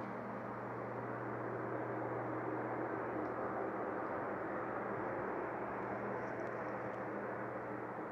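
Unexplained steady drone heard from the night sky: an even rushing hiss over a constant low hum, with no change in pitch or level. It is a recurring nighttime noise with no visible aircraft as its source.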